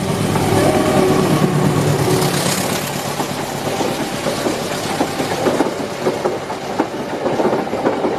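CC 201 diesel locomotive passing close by with a heavy engine drone, followed from about three seconds in by passenger coaches rolling past, their wheels clicking and knocking over the rail joints.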